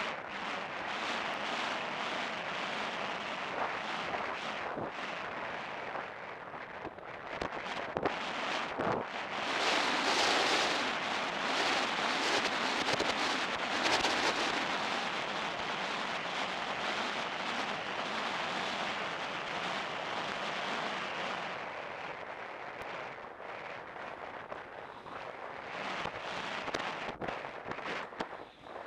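Wind buffeting the microphone of a helmet-mounted camera on a cantering horse, a dense rushing noise with irregular thuds through it, loudest from about ten to fourteen seconds in.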